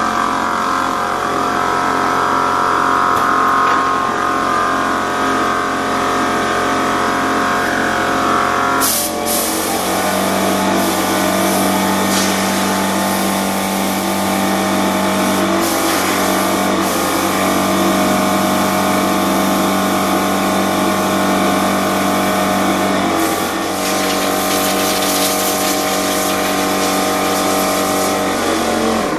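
Compressed air from an air compressor's blower nozzle blasting into a compact tractor's radiator fins to clear out clogged grass-seed debris: a loud rushing hiss that starts about nine seconds in and carries on with short breaks until near the end, over a steady drone.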